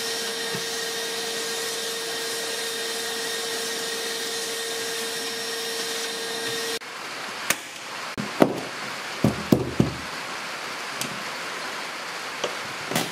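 Shop vacuum running steadily with a whine as it sucks up aluminum drill shavings, switched off about seven seconds in. After it, a scatter of sharp clicks and knocks as tools are handled on the aluminum boat floor.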